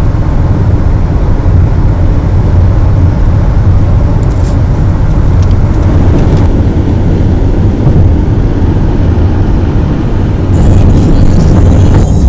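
A car driving at speed: steady engine and road noise with a deep, constant rumble.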